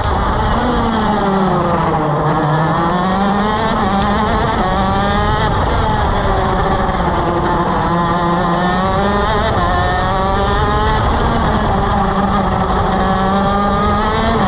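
125cc two-stroke shifter kart engine running at racing speed, its pitch falling and climbing again several times as it slows and accelerates.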